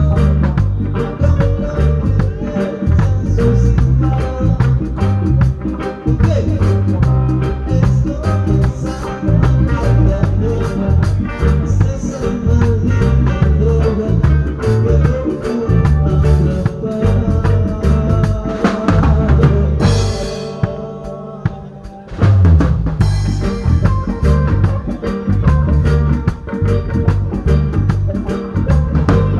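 Band music with a drum kit keeping a steady beat, snare hits over the rhythm. About twenty seconds in the band thins out briefly, then comes back in full.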